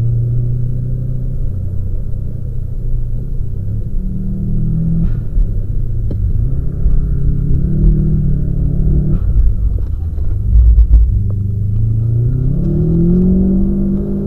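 Onboard sound of a Subaru being driven hard on a wet track: the engine note climbs under acceleration and drops back at lifts and shifts, several times over, above a heavy low rumble. A few loud thumps come about ten to eleven seconds in.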